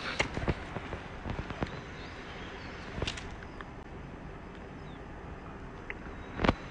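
Irregular clicks and knocks of footsteps and the phone being handled on a dog walk, over a steady outdoor hiss; the loudest knock comes near the end.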